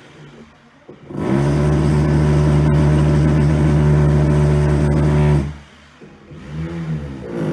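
Electric drill motor running at a steady speed for about four seconds, then stopping. Near the end it speeds up and slows down again a couple of times in short runs.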